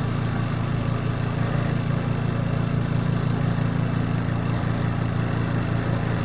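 Spin tub of a Costway twin-tub washing machine running steadily, its motor giving a constant low hum as it spin-dries a wet load.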